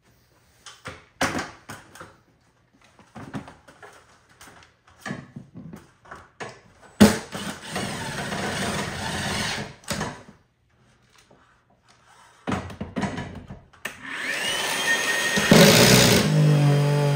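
Scattered knocks and clicks of handling work, then an electric power tool's motor running for about three seconds. After more knocks, the motor starts again near the end with a rising whine as it spins up and keeps running.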